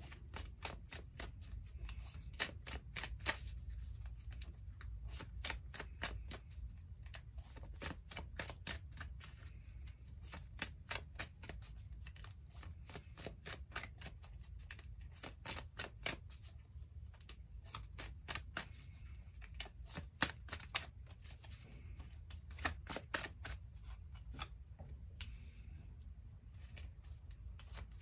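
Tarot cards being shuffled by hand: a dense, irregular run of quick card clicks and flicks, with a low steady hum underneath.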